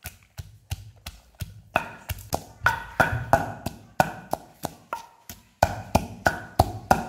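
A knife chopping food on a cutting board: sharp, fairly even knocks about three a second, with a brief pause about five seconds in.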